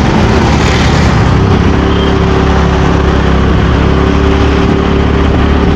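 Motor scooter engine running steadily amid road traffic noise.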